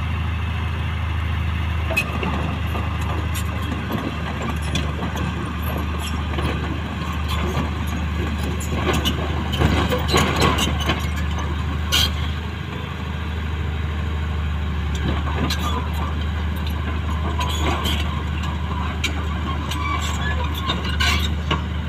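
Komatsu D31P bulldozer's diesel engine running steadily under load as the crawler climbs onto a self-loader truck's tilted bed, with sharp metallic clanks from its steel tracks, the clearest about 2, 10, 12 and 21 seconds in.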